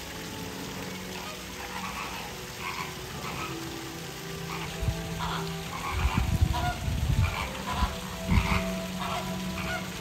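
A flock of flamingos calling, with many short honks and grunts overlapping. There is a louder low rumble with a few sudden peaks around the middle.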